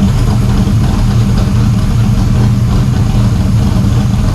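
Shelby Cobra 427's V8 engine running loud and steady at idle, just caught after a hard start.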